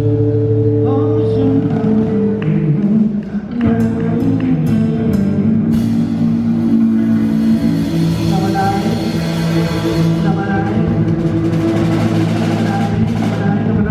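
Live rock band playing with electric guitar, bass and drum kit, and singing. Chords are held for the first few seconds, there is a brief dip about three seconds in, and then the band plays on with a steady drum beat.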